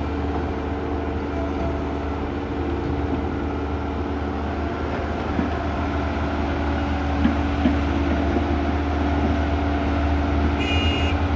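Kobelco SK120-1 excavator's diesel engine running steadily under working load, with a couple of faint knocks midway and a brief high-pitched tone near the end.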